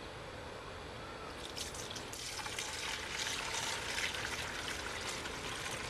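Brewed compost tea poured from a plastic bucket into the neck of a plastic one-gallon pump sprayer: a steady splashing trickle that starts about a second and a half in and grows fuller about half a second later.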